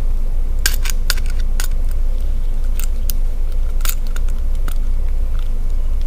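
Screwdriver working the brass terminal screw of a commercial-grade electrical outlet, clamping a wire under the screw's pressure plate: a handful of sharp, scattered metal clicks, several close together about a second in, over a steady low hum.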